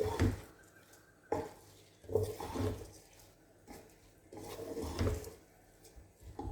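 A spoon stirring and scraping rice and masala around a metal pressure cooker, in a series of separate strokes about a second apart.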